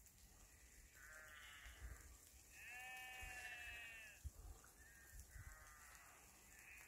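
Sheep bleating faintly: about four drawn-out calls, the second the longest and loudest. A soft low knock sounds just after the second call.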